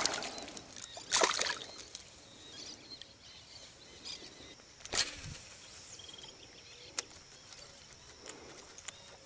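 A hooked traíra (wolf fish) splashing at the surface about a second in, then a few sharp clicks and knocks, the loudest about four seconds later, as the fish is lifted and handled over the kayak.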